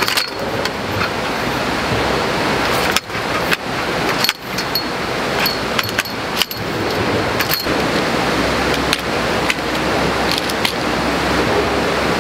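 Hilander camp cot being assembled: scattered light metallic clicks and clinks from its frame poles over a steady rushing background noise.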